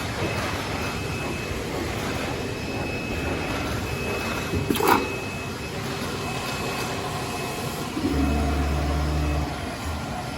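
Golden Cut TK 2316 CNC router working, a steady machine noise throughout. About five seconds in there is a short, louder sound that rises in pitch, and near the end a low hum starts and stops in blocks.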